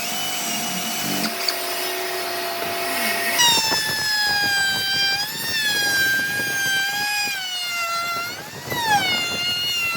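High-pitched whine of an electric power tool's motor, starting up strongly about three and a half seconds in over a fainter steady hum. Its pitch dips and recovers several times as the tool takes and sheds load, most sharply near the end.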